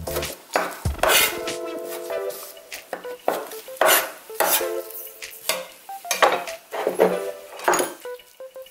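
Kitchen knife chopping cooked conch meat on a wooden cutting board: sharp, uneven knocks roughly once a second that stop near the end.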